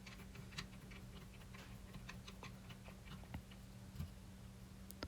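Faint, irregular clicks and ticks of a plastic nut being hand-tightened onto a toilet seat mounting bolt.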